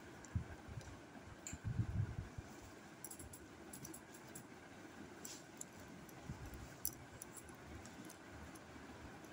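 Faint handling sounds of a folded paper cut-out being picked up and unfolded: light paper rustles and short clicks, with a few dull thumps about two seconds in.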